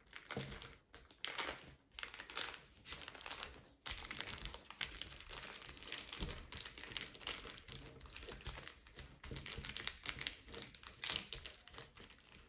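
Plastic zip bag crinkling as gloved hands press and mash a peeled banana inside it, in uneven spells of crackling.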